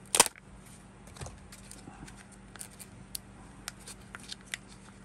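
Plastic clicks and taps from a Kinder Joy egg and its toy capsule being handled and opened. There is one sharp snap near the start, then light scattered clicks.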